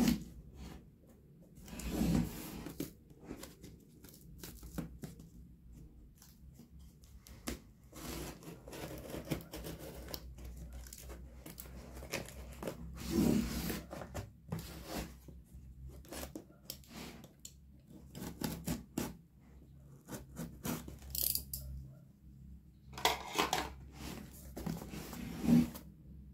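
A cardboard box being handled and its packing tape cut and torn off: scattered rustles, taps and scrapes, with a longer tearing sound in the last few seconds.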